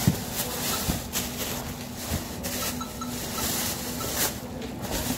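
Thin plastic grocery bags rustling and crinkling as produce is packed at a stainless-steel checkout counter, with a thump just after the start as something is set down. A steady low hum runs underneath.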